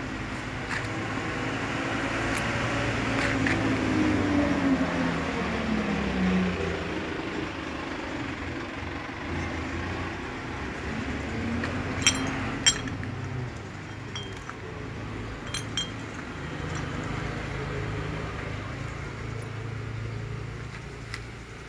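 A passing motor vehicle's engine swells and falls in pitch over the first several seconds. Then small metal brake parts clink against each other a few times as they are handled and sorted.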